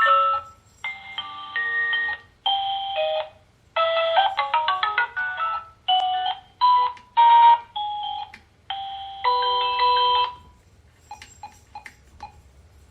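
A video doorbell's indoor monitor speaker plays a string of short electronic ringtone melodies, one after another with brief gaps, as the ringtones are stepped through in its ring menu. A few faint clicks follow near the end.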